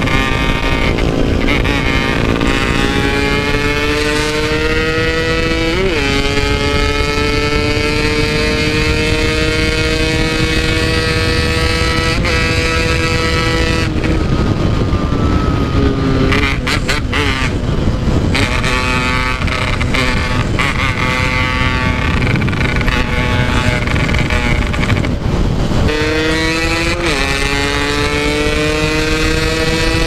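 Yamaha RX-King's 135 cc two-stroke single-cylinder engine under hard acceleration, heard from the rider's seat. The revs climb and break at the gear changes, fall off about halfway through, then pull up again with more shifts near the end.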